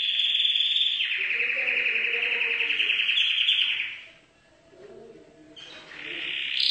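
Canary singing: a long run of fast rolling trills that breaks off about four seconds in, then starts up again near the end.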